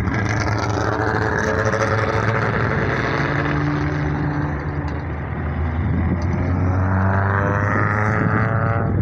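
Several historic racing cars' engines running hard as they climb the hill one after another. The engine note rises steadily over the last few seconds as one car accelerates past.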